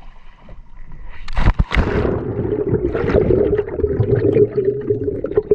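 A splash as a diver plunges into the sea about a second and a half in, then muffled bubbling and rushing water heard from underwater.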